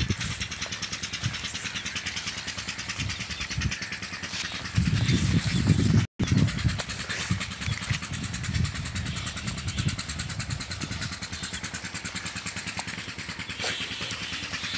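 An engine running steadily with a rapid, even beat. The sound drops out for a split second about six seconds in.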